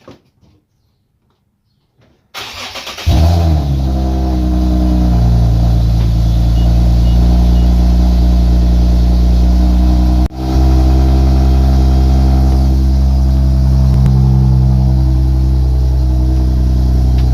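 A car engine is started: the starter cranks briefly about two seconds in, the engine catches with a quick rev flare and settles into a loud, steady idle. The sound drops out for a moment about ten seconds in, then the idle carries on.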